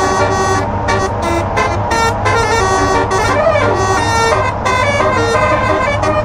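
Telolet multi-tone truck air horn playing a quick tune, loud, with short breaks between the notes. A steady low engine hum runs underneath.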